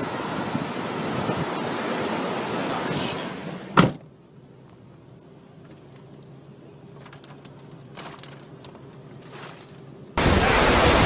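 Storm wind rushing over the microphone, cut off by a sharp click about four seconds in. A much quieter stretch with a faint low hum and a few light ticks follows, and the loud wind noise returns near the end.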